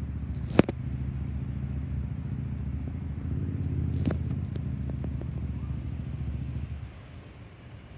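Low rumble of an Airbus A320-216's CFM56 jet engines flying overhead, steady and then dropping away about seven seconds in. A sharp click about half a second in, and another near four seconds.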